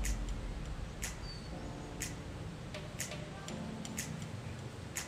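Sharp, even ticking about once a second over a low background hum.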